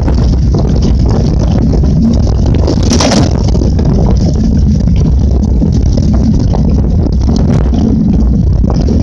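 Mountain bike riding over a leaf-strewn dirt trail, heard through a handlebar-mounted camera: loud wind buffeting on the microphone over the rumble and rattle of the tyres and bike, with a sharp clatter about three seconds in.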